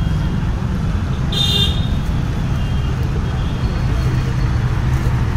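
Street traffic: a steady low engine rumble, with a brief high vehicle horn toot about one and a half seconds in.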